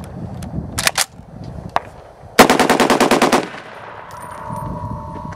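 Century Arms R1A1 Sporter, a .308 FN FAL-pattern semi-automatic rifle, fired in a rapid string of about ten shots lasting about a second, starting a little over two seconds in. A couple of sharp clicks come before the string.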